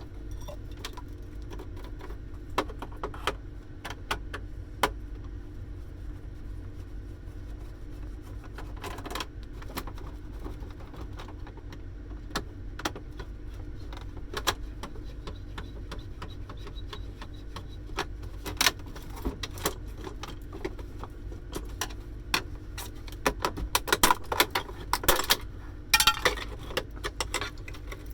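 Scattered clicks, knocks and rattles of plastic and metal parts of a Casio TE-100 electronic cash register being handled and taken apart, busiest near the end, over a steady low hum.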